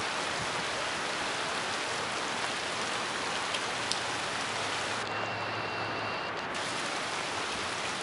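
Steady hiss of falling rain, with a faint low hum for a couple of seconds past the middle.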